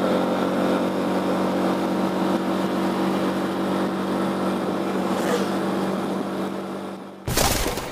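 Motorcycle engine running steadily at an even pitch while riding. Near the end it is cut off by a brief, loud rush of noise.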